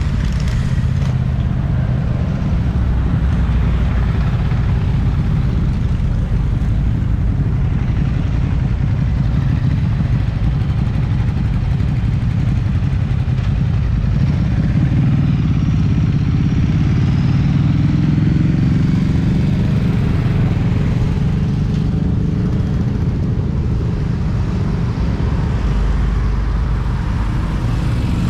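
Several motorcycles running at low speed just ahead in slow traffic, a steady low engine sound; about halfway through the pitch rises and falls as one of them speeds up and slows again.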